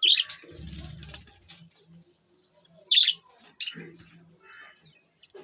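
Budgerigars chirping: short, sharp calls at the start and a pair of calls about three seconds in, with quieter chatter between. A soft low rumble is heard about half a second in.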